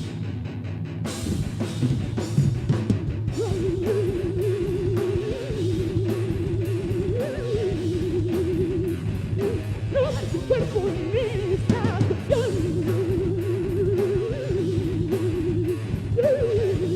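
Live heavy metal band playing an instrumental passage: distorted guitars and bass over fast, driving drums, with a high lead line trilling rapidly and bending up in pitch several times.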